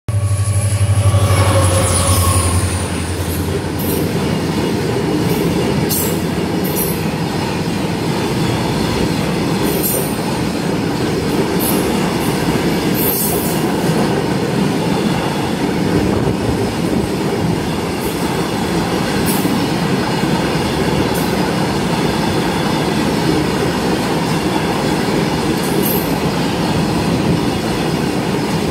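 RORO freight train of flat wagons loaded with lorries rolling past close by: a steady rumble and clatter of wagon wheels on the rails, with brief high wheel squeals now and then. In the first two seconds a low hum dips slightly in pitch and fades.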